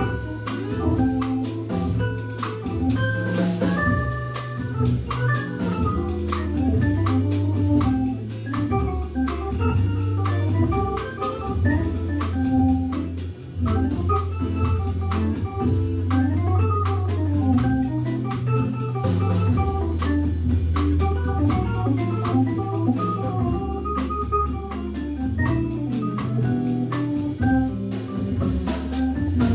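A Hammond B3 organ played through a Leslie speaker in a jazz organ trio. Long low bass notes change every few seconds under a busy melodic line, with drums and cymbal strikes keeping time.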